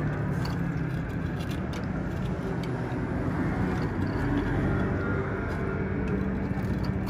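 Steady low rumble and hum at a street-stall deep-frying station, with a few light clicks of metal tongs against the wire draining rack as fried oyster balls are lifted out of the oil.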